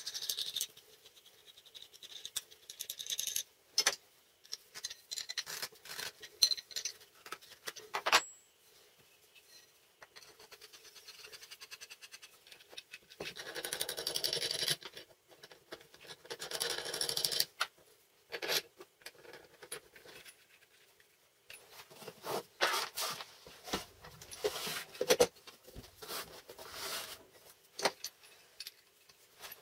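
Small metal and wooden clamp parts (a threaded rod, nuts and plywood blocks) being handled and fitted together on a wooden tabletop: scattered clicks, knocks, scrapes and light metallic rattles, with two longer scraping passages about halfway through.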